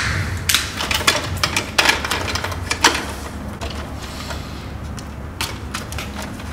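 Irregular clicks and snaps of pliers and stiff copper electrical wires being handled, cut and bent at a breaker panel. They are densest in the first three seconds and sparser after, over a steady low hum.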